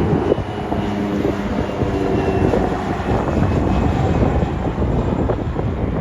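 Jet airliner passing, its engines making a loud steady rumble with a faint whine, and some wind buffeting the microphone.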